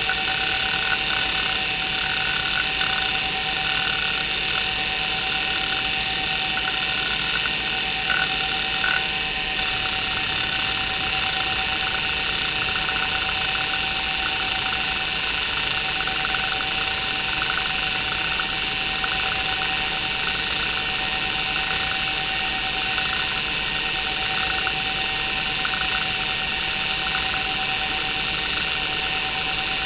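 Maxtor 8051A 41MB hard drive seeking rapidly and continuously under the hdmotion test, its heads chattering back and forth in a fast, buzzing stream of ticks over a steady whine from the spinning platters. The owner describes the drive's bearings as not very good.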